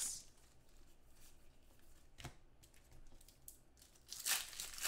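Trading cards and pack wrappers being handled: a faint click about two seconds in, then a brief tearing, crinkling rustle near the end.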